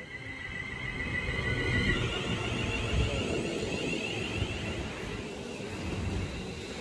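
Class 350 electric multiple unit running past along the platform: a high electric whine holds steady, then steps up about two seconds in and keeps rising in pitch. Underneath is a steady rumble of wheels on the rails.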